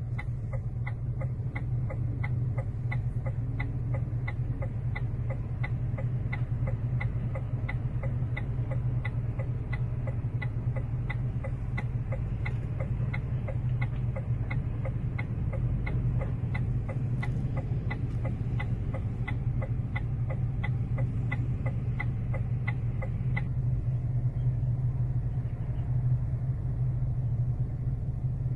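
A steady low rumble of vehicles, with short, evenly spaced ticks over it, about three every two seconds, that stop abruptly about 23 seconds in.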